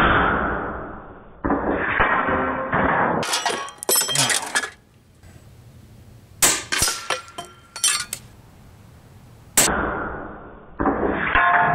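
A Steyr LG110 PCP air rifle firing a string of shots, with pellets clanking into small steel sheep silhouette targets and a drink can and knocking them off. Some hits leave a short metallic ring.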